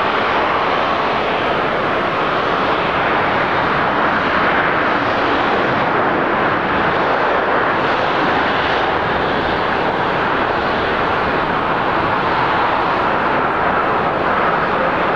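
Boeing 787-9 airliner rolling out after touchdown, its jet engines in reverse thrust: a steady, unbroken rushing jet noise.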